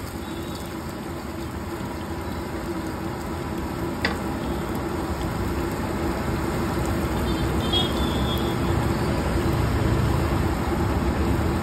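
Ghevar batter frying in deep ghee in four metal rings, a steady sizzle, over continuous street traffic noise. One sharp click about four seconds in.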